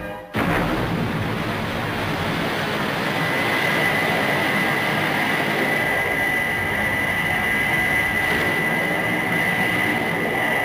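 Thunderbird 2's jet engines in flight: a steady, loud rushing roar with a high whine that comes in about three seconds in, with music underneath.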